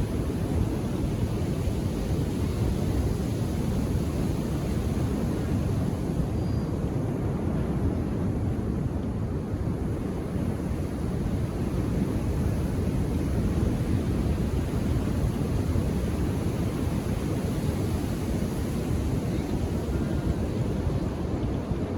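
Ocean surf on an Indian Ocean beach: a steady, low rumble of breaking waves, with no single crash standing out.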